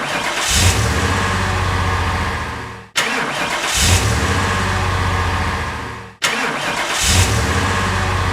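Car engine start, repeated three times in a loop: each time a brief crank, the engine catching with a surge, running steadily for about two seconds, then fading out.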